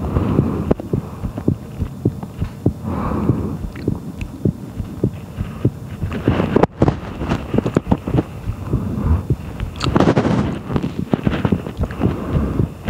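Loud chewing and wet mouth clicks from eating soft fresh fruit, ending with a bite into a cantaloupe ball.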